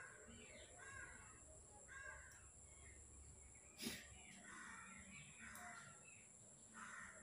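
Faint bird calls, a few short calls about a second apart, over a steady high hiss, with one sharp click near the middle.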